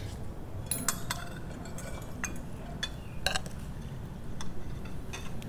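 Cutlery clinking against plates and bowls during a meal: a handful of short, scattered clinks and light knocks over a low steady hum.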